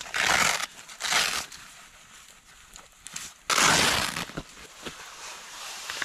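Rough rustling and scuffing as a winter boot is pulled off and handled: three short swishes, the loudest about three and a half seconds in, with quieter shuffling between.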